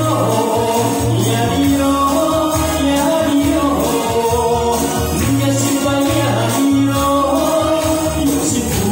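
A singer singing a pop song live into a microphone over an amplified backing track with a steady bass beat, with hand tambourines shaken along in time.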